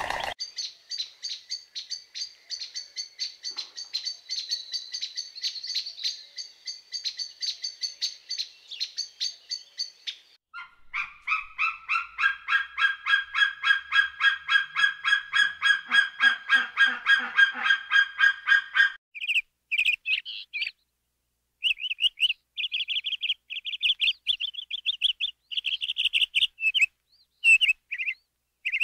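High-pitched animal calls: a fast chattering run of chirps for about ten seconds, then a steadier series of repeated notes about five a second, then scattered short buzzy chirps with gaps between them.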